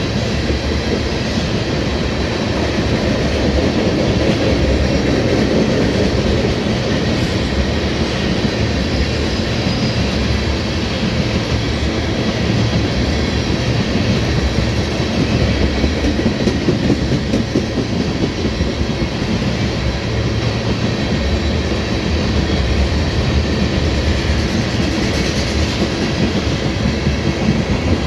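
Tank cars of a CPKC crude oil train rolling steadily past: continuous steel-wheel-on-rail noise from the passing cars.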